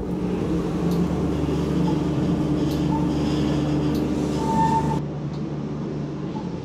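Steady hum and rumble of belt-driven machinery running, with a few faint clicks. It drops a little quieter and duller about five seconds in.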